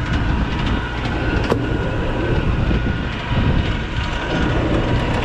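Anchor capstan on the boat's deck running as it hauls in the anchor rope, a steady mechanical running over the low rumble of the boat's engines, with one sharp click about a second and a half in.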